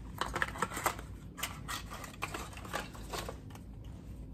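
Hands handling a small plastic bottle and measuring spoons: a quick run of irregular small clicks and ticks that stops a little over three seconds in.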